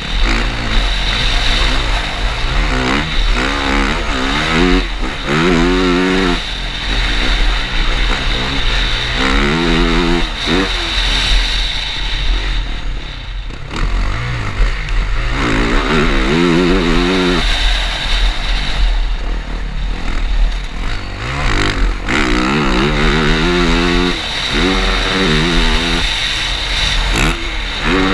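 Yamaha motocross bike's four-stroke engine at full race pace, revving hard and backing off again and again, its pitch climbing and dropping with the throttle and gear changes. Wind rumbles steadily on the microphone.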